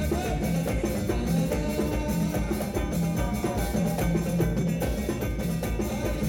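Live Souss Amazigh (amarg) band music: banjo and electric guitar over hand-played frame drums keeping a steady beat.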